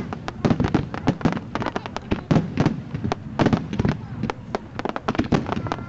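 Fireworks display: a rapid, unbroken barrage of loud bangs and shell bursts, several a second, with crackling between them.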